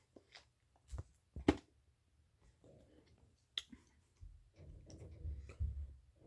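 A person drinking from a plastic soda bottle and tasting it: a few faint, sharp mouth clicks and swallows, then a low, soft handling rustle in the last couple of seconds.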